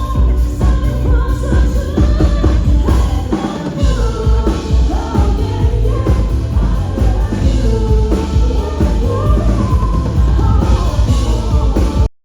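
Loud pop song with a singing voice, drums and heavy bass, cutting off abruptly near the end.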